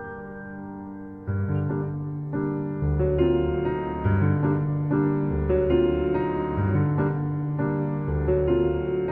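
Slow background piano music, chords and a bass line changing about once a second.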